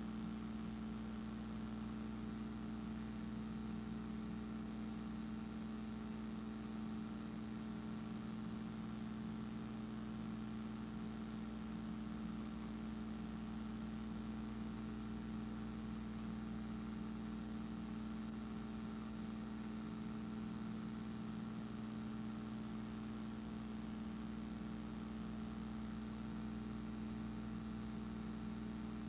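Steady, even hum of a cine film projector running, with several held tones and no changes.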